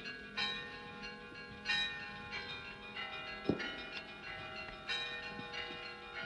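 Church bells ringing: several bells of different pitches struck at irregular intervals, each left to ring on over the others. A dull low knock comes about halfway through.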